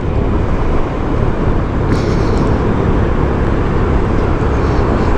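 Honda PCX 150 scooter under way: a steady rush of wind and road noise on the microphone, with the scooter's engine running underneath.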